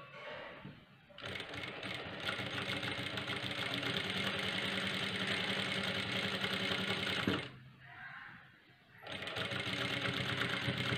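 Industrial lockstitch sewing machine stitching a bias-cut strip of cloth at slow speed: it runs steadily for about six seconds, stops briefly, then starts again.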